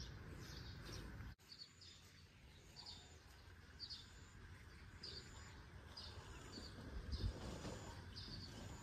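Faint outdoor ambience: a small high chirp repeats over and over, a little more than once a second, over a low rumble.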